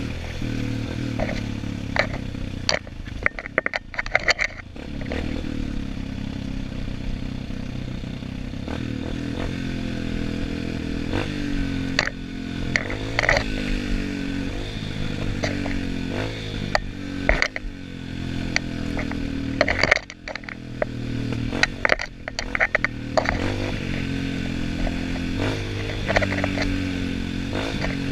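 Off-road trail motorcycle engine running under load, its pitch rising and falling with the throttle, with many sharp knocks and clatter. The engine sound drops off briefly a few seconds in and again about two-thirds of the way through.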